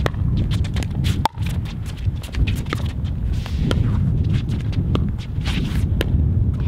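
A pickleball rally: paddles striking the hollow plastic ball in a series of sharp pocks about once a second, with lighter ticks of footwork between them, over a steady low rumble.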